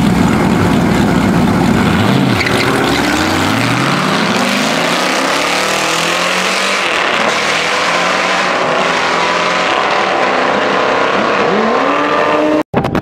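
Mazda MX-5 Miata and Chevrolet Corvette launching down a drag strip: engines held high at the line, then pitch climbing through several gear changes as the cars pull away. The sound cuts off abruptly near the end.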